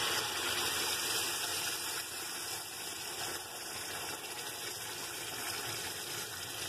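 Red chile salsa sizzling in hot oil as it is poured from a stainless steel pot into a frying pan: a steady hiss.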